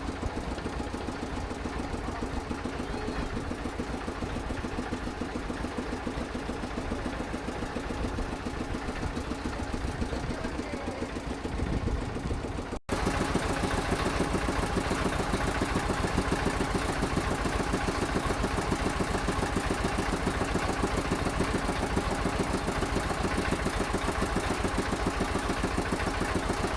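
River motorboat engine running steadily with a fast, even pulsing beat. About halfway through there is a momentary break, after which the engine sounds louder and brighter.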